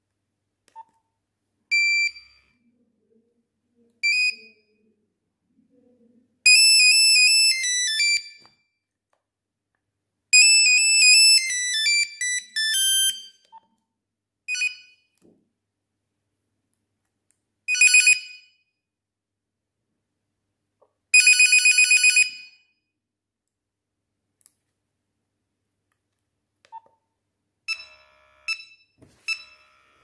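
Nokia 3310's built-in monophonic ringtones previewed one after another as the ringtone list is scrolled: about eight short beeping tunes separated by silences, the longest lasting two to three seconds.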